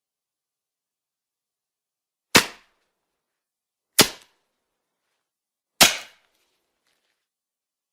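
Three sharp cracks, each cut short quickly, spaced about a second and a half apart: a cartoon sound effect.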